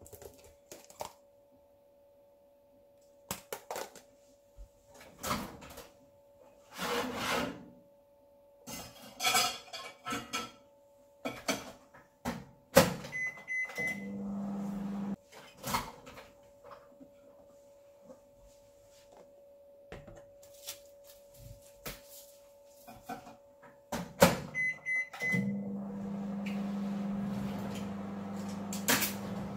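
Microwave oven used twice: a door shuts with a knock, keypad beeps, and the oven starts heating with a steady low hum. The first hum breaks off after about a second; the second, starting about 25 seconds in, keeps going. Before that come knocks and rustles of plastic food containers and bags being handled on a stainless counter.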